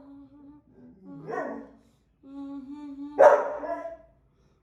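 A dog whining steadily, with two sharp barks, about a second and about three seconds in.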